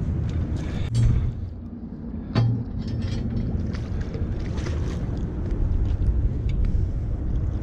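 Steady low rumbling noise, with two sharp knocks about a second and two and a half seconds in and scattered small clicks as a spinning rod and landing net are handled.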